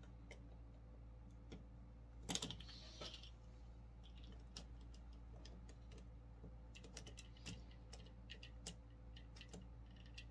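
Faint scattered clicks and light taps of small parts and tools being handled, with a brief louder clatter about two seconds in, over a low steady hum.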